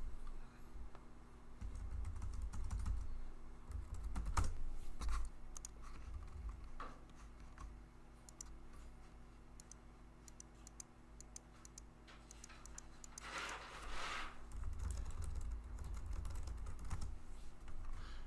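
Typing on a computer keyboard: irregular keystroke clicks in short runs, over a low steady electrical hum.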